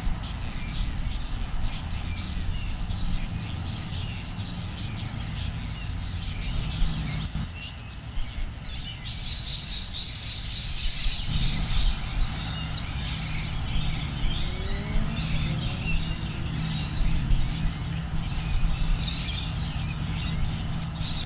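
Outdoor ambience from a nest camera: a steady low rumble throughout, with small birds chirping in short scattered calls from about halfway through.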